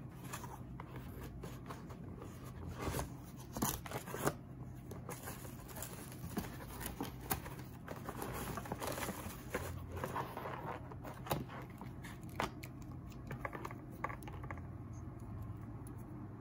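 A cardboard product box being opened and unpacked by hand: irregular scrapes and clicks from the flaps, with bubble wrap and loose charging cords being handled. The sharpest clicks come a few seconds in.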